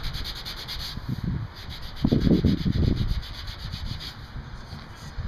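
Hand sanding with sandpaper on the primed steel body panel of a 1966 Volkswagen bus: fast, even back-and-forth rubbing strokes, heavier for a second or so about two seconds in. It is the final block sanding of the primer before paint.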